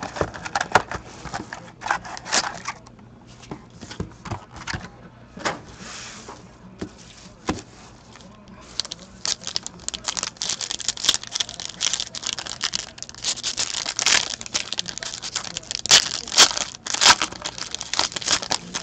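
Foil trading-card packs handled and torn open: crinkling and crackling of the foil wrappers. Scattered taps and rustles at first, then dense, louder crinkling from about halfway, with sharp crackles near the end.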